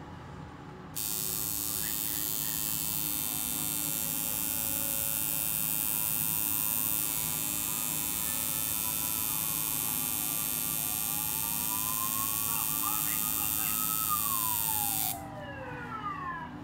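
Electric tattoo machine buzzing steadily as it works on skin. It switches on about a second in and cuts off shortly before the end. A fainter tone glides up and down beneath it.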